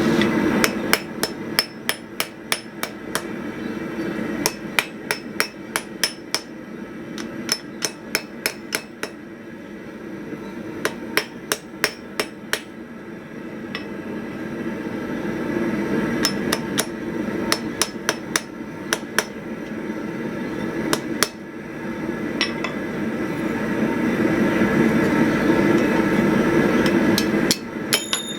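Hand hammer striking hot flat steel on an anvil in quick runs of blows, about three a second, with pauses between runs, as the end of a strap is curled into a hinge knuckle around a 6 mm pin. The anvil rings on each blow, and a steady roaring runs underneath, growing louder in the second half.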